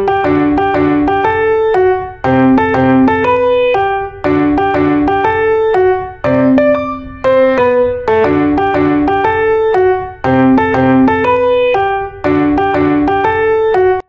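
Background piano music: a short phrase of quick notes that repeats about every two seconds.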